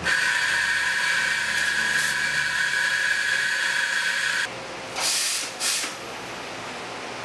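Espresso machine steam wand hissing with a steady high squeal, cutting off about four and a half seconds in, then two short bursts of steam.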